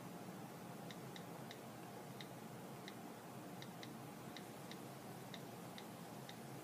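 iPad on-screen keyboard key clicks, about a dozen faint, sharp ticks at an uneven typing pace, one per key press as a password is entered, starting about a second in.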